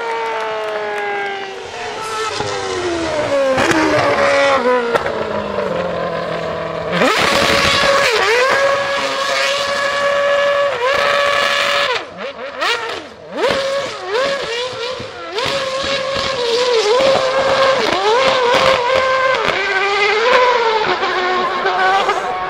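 A Formula 1 car's engine dropping in pitch as the car drives away, then, from about seven seconds in, the 2012 Red Bull RB8's 2.4-litre Renault RS27 V8 held at high revs, rising and dipping over and over as the car spins donuts on the wet track.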